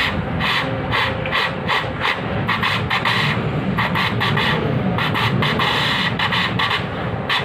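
A person imitating a running train with the mouth and a cupped hand: a rhythm of hissing bursts, about three a second, like a train running on the rails.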